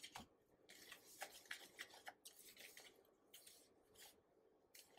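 Faint rustling and scratching of a gloved hand stirring a dry breading mix of flour, cornmeal and cornstarch, in short irregular strokes.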